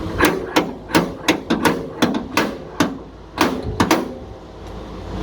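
Sharp metal knocks, about a dozen in an uneven run over the first four seconds, from dent-pulling and hammer work on a car's sheet-steel fender.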